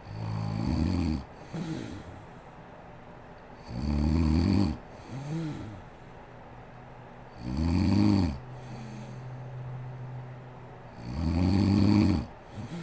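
A woman snoring in her sleep: four loud, rasping snores about every three and a half to four seconds, each followed by a shorter, softer sound.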